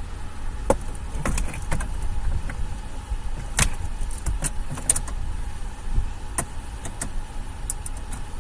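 Scattered clicks, taps and light knocks of hands and tools working around the plastic trim under a car's dashboard, over a steady low rumble. The sharpest click comes about three and a half seconds in.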